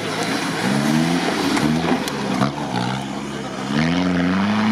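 Toyota Land Cruiser 70-series 4x4's engine revving hard under load as it drives through mud. The engine note climbs about a second in, dips, then rises again and is held high near the end, with a few sharp knocks midway.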